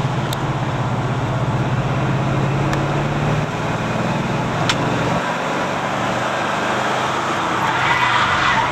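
Car engine and road noise heard inside a moving Oldsmobile Cutlass's cabin. A steady engine drone drops away about three and a half seconds in. Near the end a louder rush of tyre noise builds as the Subaru Impreza slides sideways across the road.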